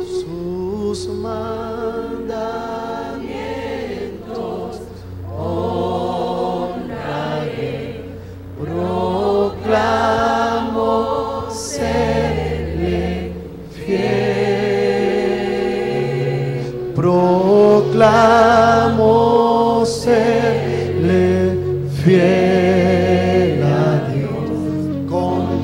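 Church choir singing a worship song with a band backing it, sung phrases with vibrato over held bass notes, growing louder in the second half.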